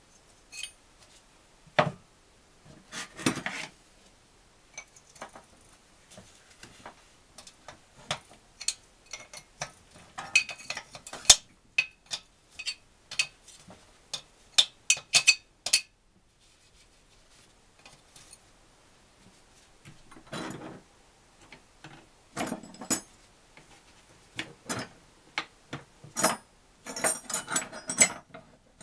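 Irregular metal clicks and clinks of a spanner being worked on the nuts of an NSU Special Max 250 engine's alloy crankcase, with a quiet spell about halfway through and a run of clattering near the end.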